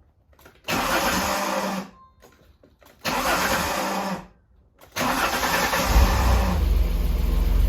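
1993 Alfa Romeo 164 being started: two loud rushing bursts about a second long each, then a third that runs on as the engine catches about six seconds in and keeps running. The owner cannot identify a noise that follows the starter on some starts but not on others.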